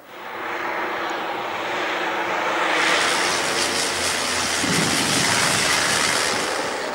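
Extra 260 aerobatic monoplane's piston engine and propeller passing low overhead. A steady drone comes up sharply at the start, is loudest through the middle and eases slightly near the end.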